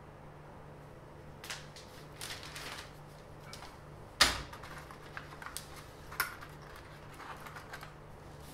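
Handling noises of a plastic flexible curve ruler and paper on a workbench: scattered clicks and short rustles, with one sharp knock about four seconds in.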